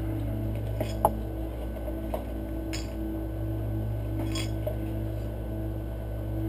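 A few separate light metallic clinks of small metal objects being handled, the sharpest about a second in, over a steady low hum.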